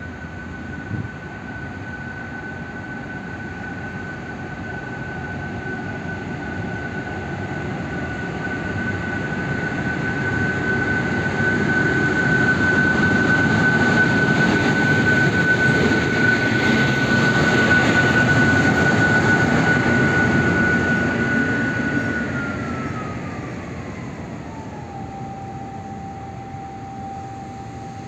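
M62-series diesel locomotive running light at low speed: its diesel engine grows louder as it passes close by, then fades as it moves away. A steady high-pitched whine runs over the engine noise and drops sharply in pitch about three-quarters of the way through.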